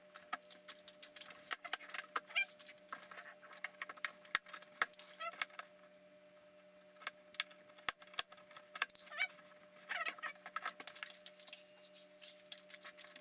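Bike packaging being cut open and handled: faint scattered clicks and scrapes with a few short squeaky chirps, over a steady low electrical hum.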